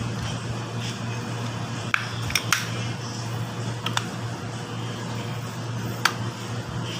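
Motorcycle drum-brake parts being fitted back together by hand: a handful of short, sharp metal clicks and taps, three close together about two seconds in, then one around four seconds and one near the end, over a steady background hum.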